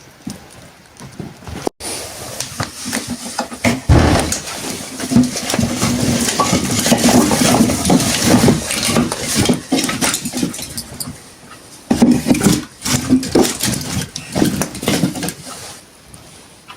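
Animal sounds mixed with a busy clatter of clicks and knocks, in two stretches with a short break about eleven seconds in.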